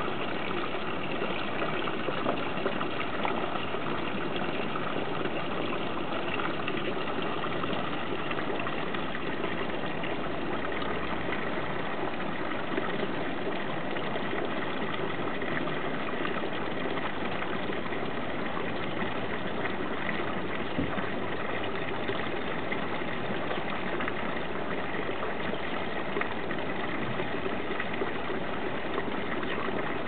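Garden pond fountain: a stream of water pouring steadily into the pond, an even splashing with no breaks.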